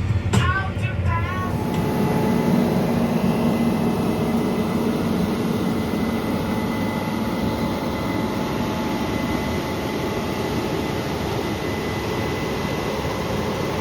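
Steady drone of running farm machinery, with a faint steady high whine over a low rumble and no change in pace.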